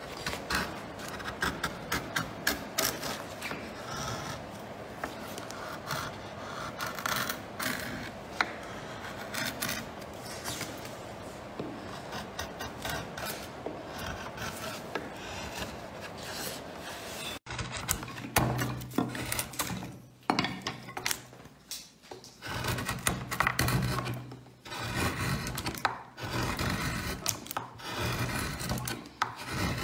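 Hand carving gouges and chisels cutting into wood, a steady run of short scraping, slicing strokes. Partway through the sound changes abruptly, and a low hum sits under some of the later strokes.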